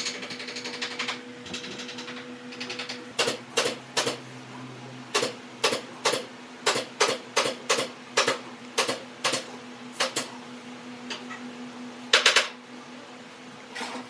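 A series of sharp knocks at uneven spacing, roughly two a second, over a steady low hum, with a quick rattle of clicks near the start.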